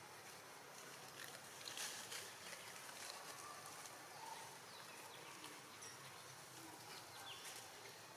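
Quiet forest-floor ambience: a few short rustles in dry leaf litter from a long-tailed macaque moving about, loudest about two seconds in, with some faint short chirps.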